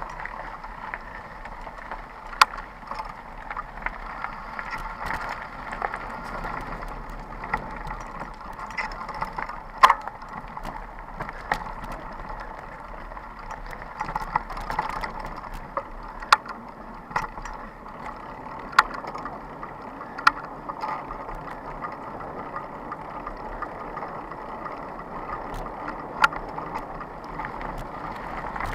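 Mountain bike rolling fast over a rough dirt and gravel trail: steady tyre and rattling noise, with frequent sharp clacks as the bike hits bumps and stones.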